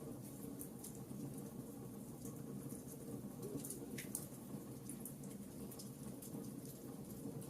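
Wood fire crackling: many small, quick pops over a soft, steady low rumble, with a slightly stronger pop about four seconds in.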